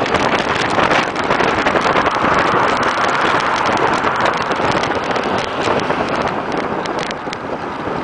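Wind rushing over the microphone mixed with road traffic noise, a steady loud rush with no horn sounding, and a few sharp ticks near the end.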